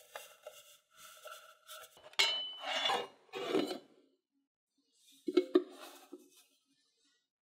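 Metal sliding lid of a square Pullman loaf tin scraping along the tin's rails as it is pushed shut, after a few light metallic clinks. Two sharp metal clicks follow about five seconds in.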